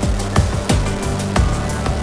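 Electronic background music with a fast drum beat, about three hits a second, over a steady bass line.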